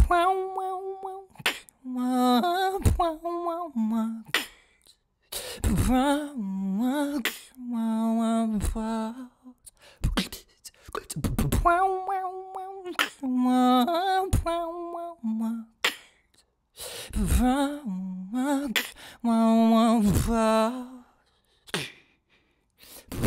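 Beatboxing: sharp percussive mouth sounds alternating with held, hummed notes that step between a few pitches.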